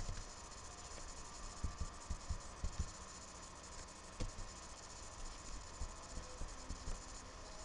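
Steady microphone hiss with a faint hum, broken by a handful of soft, low thumps: a quick cluster of five or six from about one and a half to three seconds in, and a single one about four seconds in.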